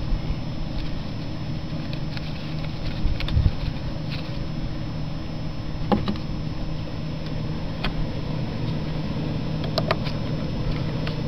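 A steady, engine-like hum, with a few sharp clicks scattered through it as the dish parts are handled.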